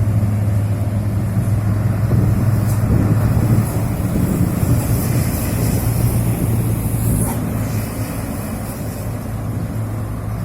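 Road traffic: a vehicle engine running with a steady low hum, with wind on the microphone.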